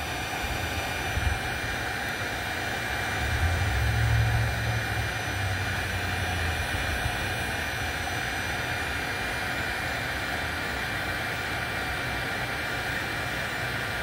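Heat gun running steadily, blowing hot air onto solder seal wire connectors to shrink the sleeves and melt the solder; a low rumble swells for a few seconds a little way in.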